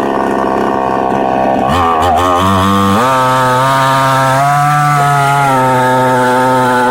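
Chainsaw engine running at high speed. Its pitch wavers about two seconds in, then holds steady, sagging slightly for a moment near the middle, as when the chain is under load in the wood.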